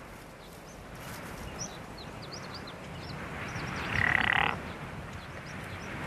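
Rustling and scraping of dwarf pine branches as a chamois buck rubs its horns against them to leave scent marks. A brief, louder, harsher sound comes about four seconds in, and faint high chirps sound throughout.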